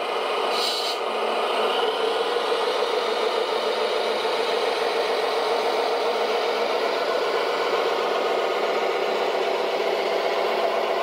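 Tamiya Mercedes-Benz Arocs 6x6 RC truck driving, with a steady engine-like rattle.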